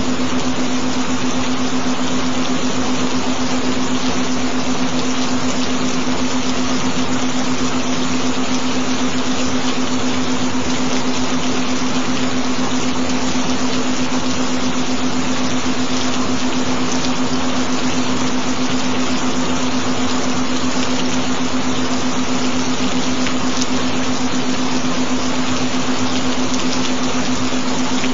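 Gentle rain recording: a steady, even hiss of rainfall with a steady low tone held underneath it, a binaural-beat tone.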